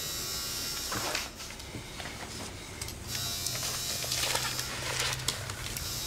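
An electric tattoo machine buzzing steadily in the background, with paper handled and rustling on a desk and a few light knocks.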